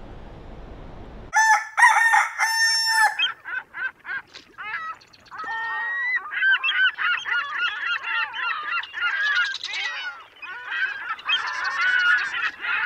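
A rooster crows about a second in, followed by a flock of geese honking over one another without a break.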